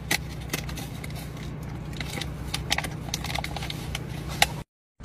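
Steady low rumble of a car interior, with scattered sharp crunching clicks of a snack being chewed. The sound cuts off suddenly near the end.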